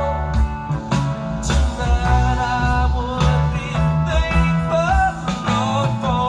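Live rock recording with singing and guitar played back over hi-fi speakers driven by NAT Audio Magma M amplifiers on a stock molded power cord, a sound the owner calls thin and crispy.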